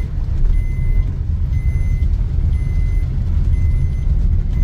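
Inside a moving car on a rain-wet road: steady low rumble of the engine and tyres, with a short high beep repeating about once a second.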